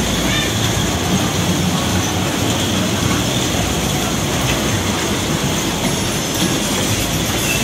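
Children's car carousel turning, its ride vehicles and rotating platform giving a steady rolling rumble.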